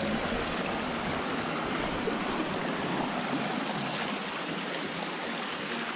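Mountain stream water flowing, a steady rush.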